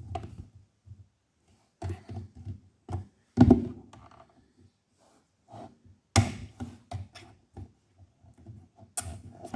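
Irregular clicks and knocks of a laptop's plastic touchpad area being pressed and prodded, the loudest a little over three seconds in.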